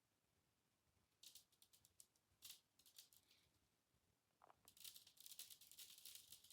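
Near silence with faint, scattered rustling and scratching, growing denser in the last second and a half.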